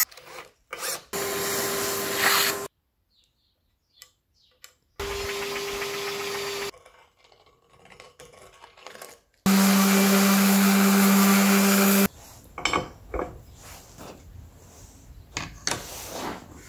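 Cordless drill boring into a steel plate in short runs: three steady whirs of about one and a half to two and a half seconds with gaps between them, the last louder and lower in pitch. Light knocks and handling noise follow near the end.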